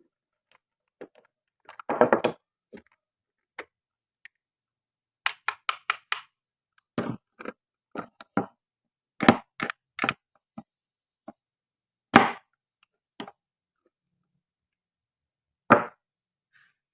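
Toy kitchen knife cutting and knocking through plastic and wooden toy fruit on a cutting board: sharp clacks and clicks, a cluster about two seconds in, a quick run of five around five to six seconds, several more after that, and single clacks near the end.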